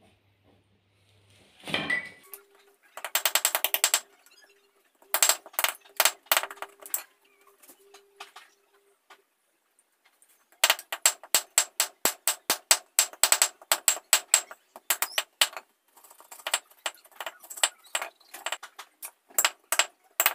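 A broad knife striking and shaving bamboo on a wooden block: runs of sharp knocks, several a second, with a fast rattling run about three seconds in.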